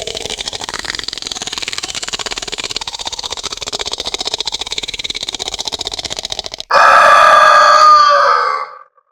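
Designed basilisk monster sound effect: a long, rapid, pulsing rattling hiss, then, about two-thirds of the way in, a loud shrieking call with several stacked pitches. The call lasts about two seconds and trails off.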